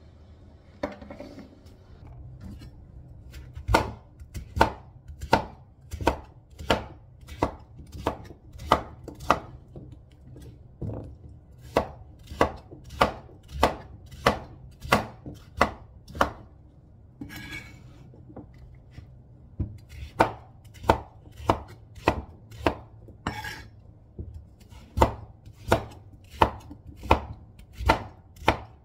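Chef's knife chopping squash (kalabasa) into chunks on a white cutting board: sharp knocks of the blade hitting the board, about one and a half a second, in runs broken by short pauses.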